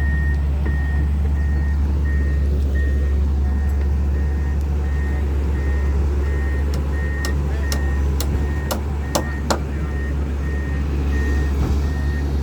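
Excavator diesel engine running with a steady low drone under its travel alarm, a single high beep repeating at a regular pace. Several sharp metallic clicks or knocks come in the second half.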